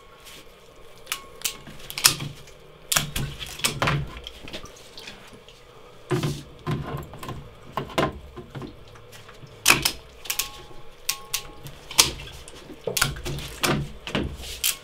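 Long-handled manual press tool being worked onto metal pipe fittings, crimping them: a string of irregular sharp metallic clicks and clanks from the jaws and handles.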